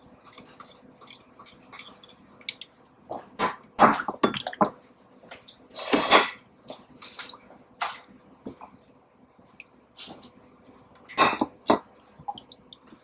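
Spoon clinking and scraping against a small cup and a stainless steel saucepan while brown sugar is added to tomato sauce and stirred in, in a scatter of short, irregular taps and wet scrapes.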